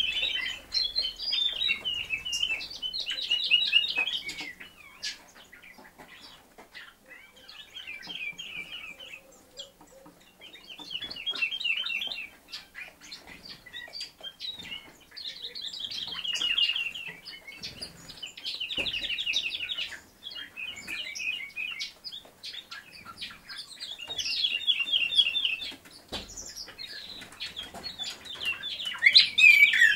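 Small songbird singing: short phrases of rapid, high twittering trills, each about a second long, repeated every few seconds.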